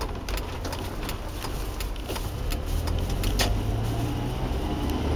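In-cab sound of a manual double-cab truck driving over a rough, broken road surface. The engine drones steadily, its note rising a little about three seconds in, and frequent sharp clunks and rattles come from the body and suspension.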